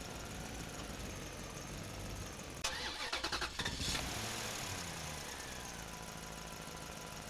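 A vehicle engine running low and steady, with a rattling clatter for about a second, about three seconds in. It sounds like an engine that is struggling and not pulling.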